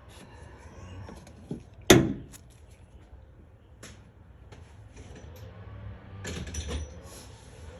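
Scattered small clicks and knocks of hand work on an engine, with one sharp knock about two seconds in and a short clatter a little after six seconds.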